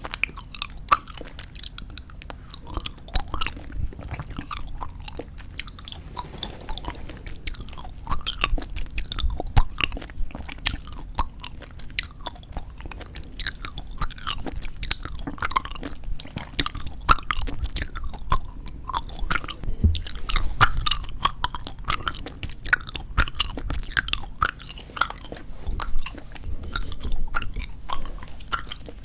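Close-miked chewing of soft bubblegum: continuous wet, sticky mouth clicks and smacks at an irregular pace, getting busier about a third of the way in.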